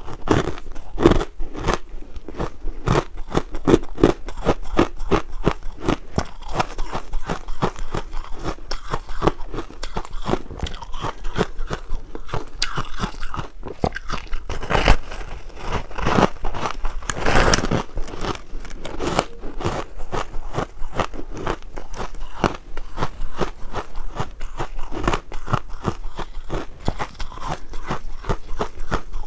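Close crunching of a person biting and chewing a slab of pink frozen ice: dense, irregular crackly crunches throughout, with a few louder bites about halfway through.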